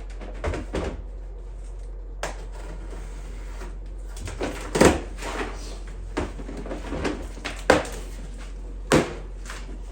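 Parts and tools being handled on an engine build: a run of irregular knocks and clunks, loudest about five, eight and nine seconds in, over a steady low hum.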